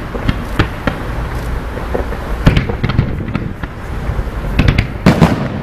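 Fireworks display going off: a continuous run of bangs and crackles, with the loudest bangs about two and a half seconds in and again near the end.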